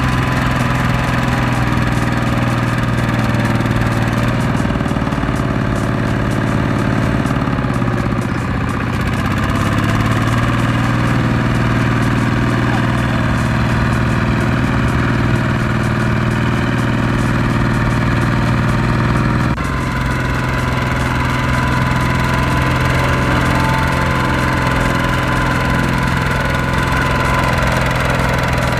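Single-cylinder diesel engine of a two-wheel walking tractor running steadily under load, pulling a loaded trailer through sticky mud. The engine note shifts abruptly about twenty seconds in.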